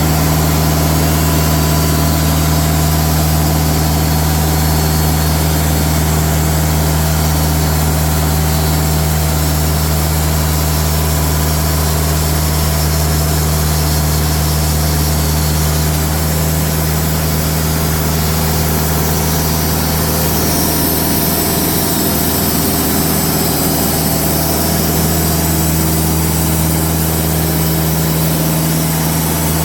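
Diesel engine of a TimberKing portable band sawmill running steadily at a constant speed.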